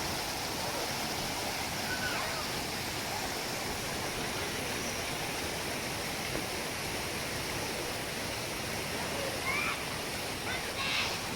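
Steady rushing of a mountain waterfall's falling water.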